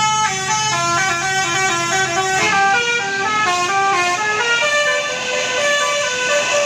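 Tour bus 'telolet' musical horn playing a quick tune of short stepped notes, several a second. A low steady hum runs underneath until about two and a half seconds in.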